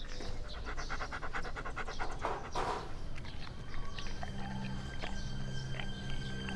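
Rapid, even panting breaths for about two and a half seconds. Sustained low music notes come in about four seconds in.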